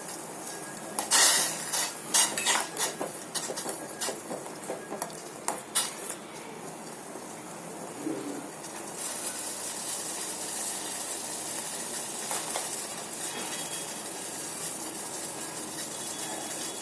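A metal spoon clinking and scraping against a cooking pot, a quick cluster of sharp knocks over the first few seconds. About halfway through, a steady hiss from the hot pan sets in and carries on.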